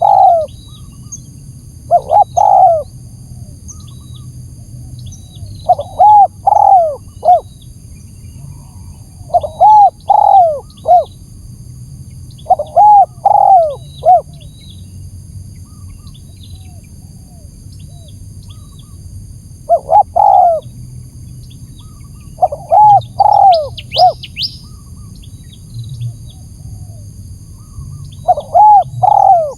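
Spotted dove cooing, used as a lure call (pikat) for wild doves: short phrases of two to four arched coos, repeated every few seconds.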